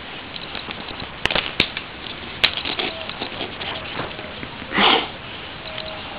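Dry leaf litter rustling and crackling, with three sharp clicks in the first two and a half seconds and a short burst of rustling noise nearly five seconds in.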